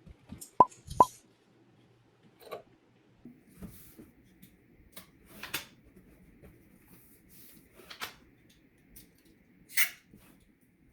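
Irregular short clicks and soft knocks in a quiet small room, two sharp ones close together about half a second in and others scattered every second or two, over faint room tone.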